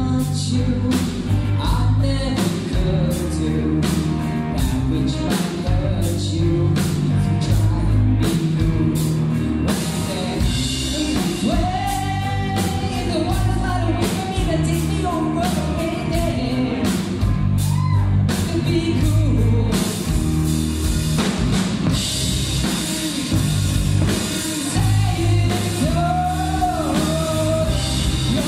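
A rock song: a singer over a band with drum kit, bass and guitar, the drums beating at a steady pulse.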